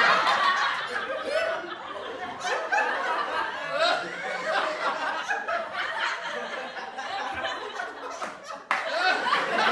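A group of people laughing and chuckling together, many voices overlapping. The laughter eases off through the middle, then a louder burst starts abruptly near the end.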